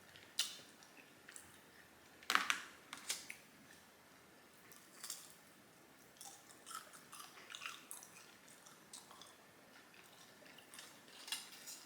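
A person chewing and smacking their lips while eating, a string of short, irregular mouth clicks with pauses between, the loudest about two and a half seconds in.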